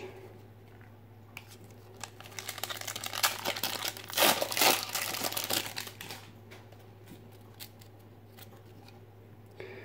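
Foil wrapper of a 1992 Fleer Ultra football card pack crinkling as it is handled and torn open, starting about two seconds in and dying away about six seconds in.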